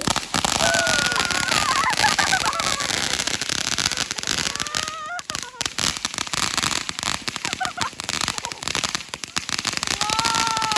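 Consumer fireworks crackling: a dense, rapid stream of small pops and crackle, with a short lull about five seconds in.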